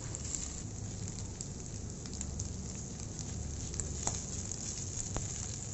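Shredded cooked beef frying in mustard oil in a nonstick pan: a steady sizzle with small crackles as a spatula stirs it, with two short clicks near the end.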